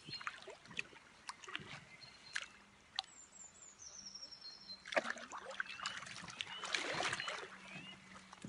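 Light splashing and trickling in shallow river water as a barbel is lowered back in and released, thickest in the second half. Birds are singing short whistled phrases.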